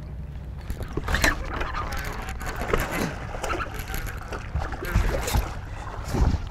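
A hooked bass thrashing and splashing at the water's surface beside a boat, with irregular splashes and knocks starting about a second in.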